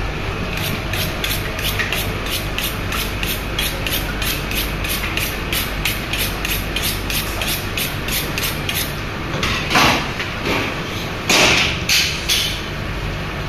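A knife being sharpened on a honing steel: a quick, even run of metal strokes, about four a second, over a steady low hum. Near the end come a few louder, longer scrapes as the blade goes to work on the red snapper.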